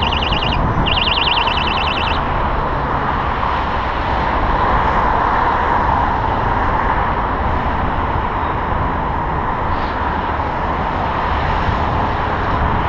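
Steady outdoor road noise of passing vehicles, with a warbling, alarm-like electronic tone in the first two seconds.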